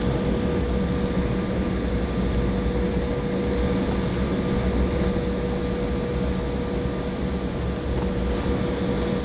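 Cabin noise of an Embraer E170 airliner taxiing after landing: its turbofan engines running at idle, a steady hum with a low rumble and an even whine.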